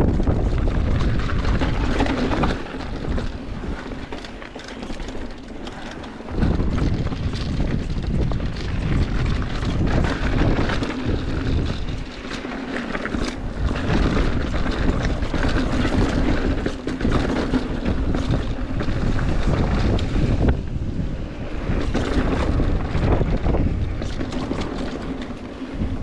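Wind buffeting the microphone of a mountain bike riding fast over rocky trail, with the bike's tyres and frame clattering over rock in sharp knocks. The wind rumble eases briefly a few seconds in and again about halfway through.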